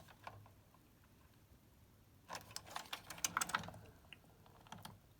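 A quick cluster of light clicks and taps, about two seconds in, with a few more near the end: small tools and parts being handled while new diodes are fitted to a circuit board.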